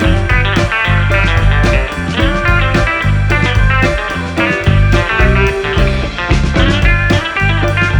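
Background music: a guitar-led rock track with drums and a steady beat.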